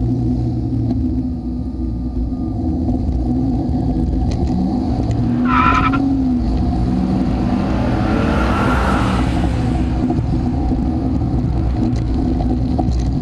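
Car engine and road noise picked up by a camera mounted on the front of the moving car: a steady rumble, with the engine pitch rising and falling about five seconds in. A brief high squeal comes at the same moment, and a swell of rushing noise follows around eight to nine seconds in.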